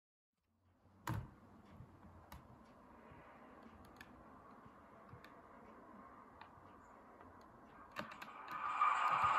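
TT-scale model railway: a few faint sharp clicks over a low hiss, then near the end a louder steady whirring with a thin high whine starts up, as the model diesel locomotive's motor or digital sound decoder starts.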